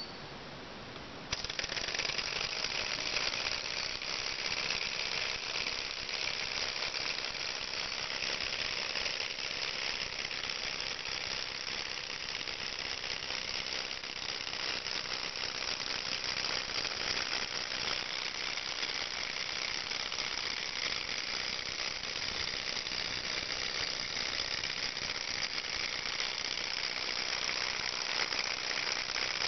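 Small hot-air Stirling engine model running at speed, its piston linkage and belt-driven flywheel making a steady, high-pitched mechanical running noise that sets in abruptly about a second in.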